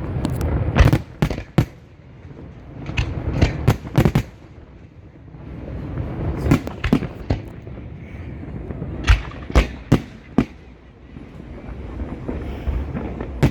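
Fireworks going off: clusters of sharp bangs and cracks over a continuous low rumble of further explosions.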